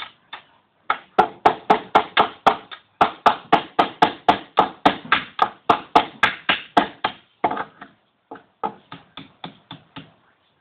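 A hammer striking a nail: a fast run of sharp strikes, about four a second, broken by a short gap. After a pause, a few lighter strikes come near the end.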